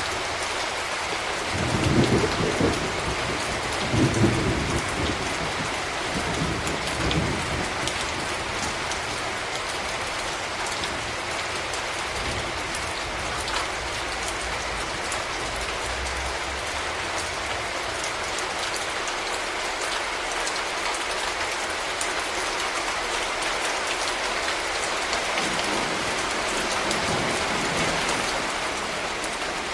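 Steady rain pattering, with scattered drops. Low thunder rumbles twice in the first few seconds, and fainter rumbling returns near the end.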